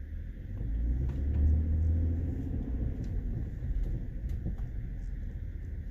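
Lincoln MKT driving over rough road: a steady low road rumble with scattered sharp pops, about half a dozen, from the suspension. The popping is the sign of worn-out sway bar links.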